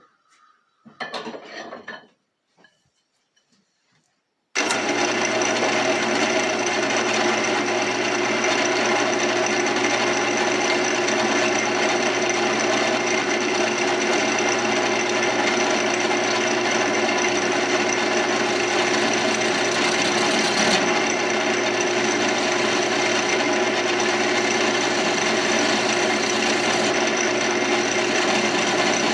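A wood lathe running with a hollowing tool scraping out the inside of a spinning mulberry blank, a steady machine noise that starts suddenly a few seconds in. A short noise comes about a second in.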